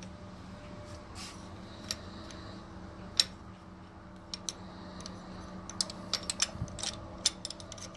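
Light metal clicks and taps as the steel parts of an AGA N62 valve stem seal tool are handled and seated on a BMW N62 cylinder head: a few single clicks, then a quicker run of them near the end, over a steady low hum.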